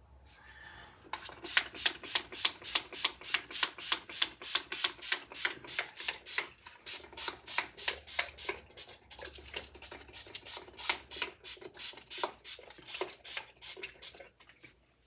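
Spray bottle of hair detangler pumped over and over, about three to four short hissing sprays a second, starting about a second in and stopping near the end.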